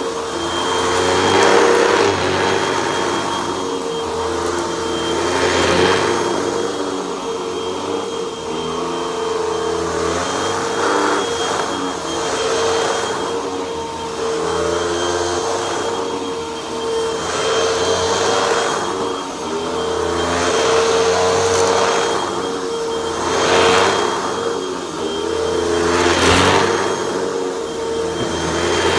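Upright vacuum cleaner running on carpet: a steady motor whine, with the rush of air and brushroll swelling and fading every few seconds as it is pushed forward and pulled back across the pile.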